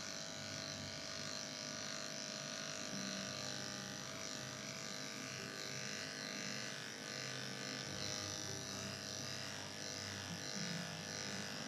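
Corded electric dog-grooming clippers humming steadily as they shave through a dog's matted coat.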